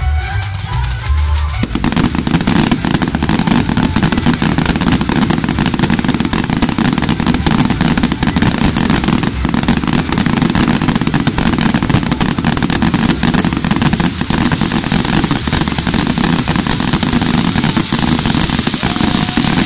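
Castillo firework tower going off: a continuous loud hiss of spark fountains and spinning jets, thick with rapid crackling pops. It starts suddenly about two seconds in, cutting off brief music.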